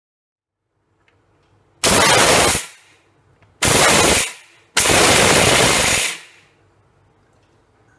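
Indian mixer grinder (mixie) run in three short pulses, about a second each with the last one a little longer, grinding roasted peanuts and dal in its steel jar into chutney powder.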